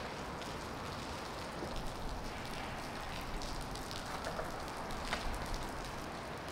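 Steady pattering of falling water on a hard surface, like rain, with scattered sharper drops through it.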